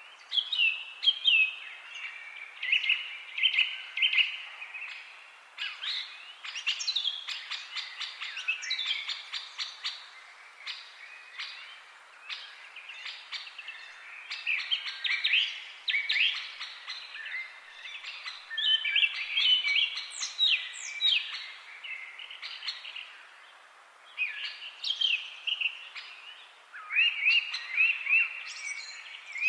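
Several songbirds chirping and singing over one another, with many short quick notes and rapid trills, busiest around the middle and the last few seconds.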